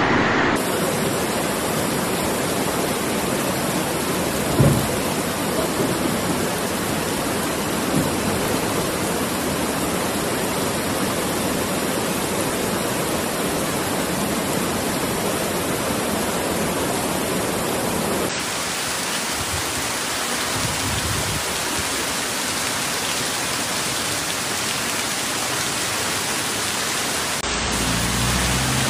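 Torrential rain and floodwater rushing down a street: a steady, loud rushing hiss, with one sharp thump about five seconds in.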